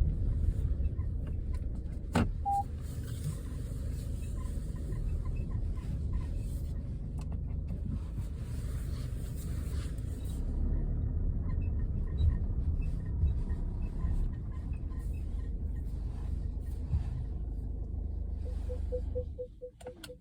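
Steady low rumble inside a Peugeot 5008 GT Line's cabin on the move. A sharp click comes about two seconds in, and faint light ticks recur. Near the end a short run of beeps sounds and the rumble falls away.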